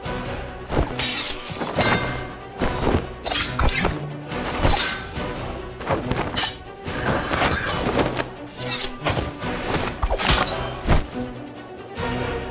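Fight sound effects over background music: a rapid series of sharp hits, whacks and shattering crashes, one or two a second.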